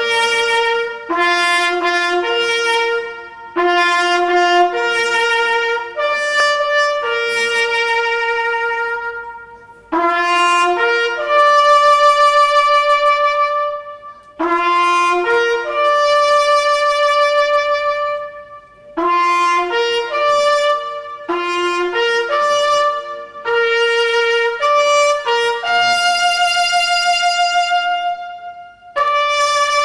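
Solo trumpet playing a slow melody of long held notes, phrase by phrase, with short breaks between phrases.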